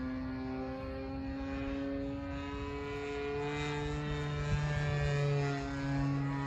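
Engine of a Balsa USA Stingray 120 RC model airplane running in flight, a steady drone whose pitch drifts slowly as the plane flies. A lower steady hum joins about three seconds in.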